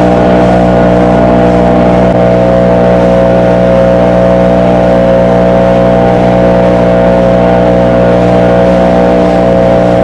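An engine running loudly at a steady, constant speed, its pitch unchanging throughout.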